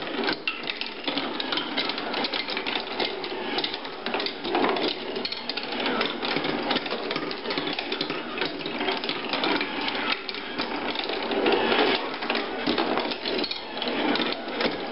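Marbles rolling and clattering through a handmade wooden marble machine: a continuous busy rattle of many small knocks as the balls run and drop along the wooden tracks.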